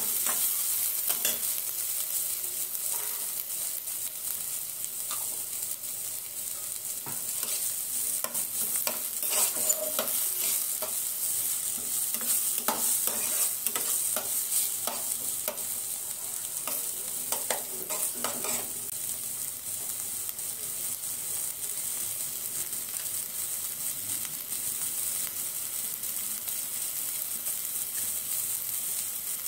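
Diced onion and tomato sizzling steadily in oil in a frying pan, with a spatula scraping and clicking against the pan as the vegetables are stirred. The stirring stops a little past halfway, leaving only the sizzle.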